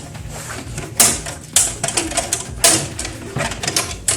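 Irregular clicks and knocks of hard plastic and metal parts from a scrapped computer case being handled and pulled apart, with several sharp clacks about a second apart.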